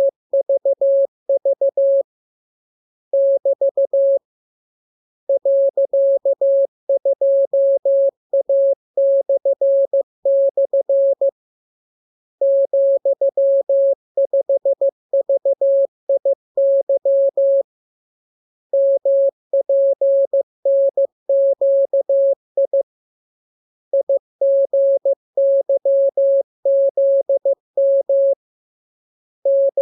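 Morse code (CW) sent as a single steady beep tone, keyed on and off into dots and dashes. The characters come in groups separated by pauses of about a second.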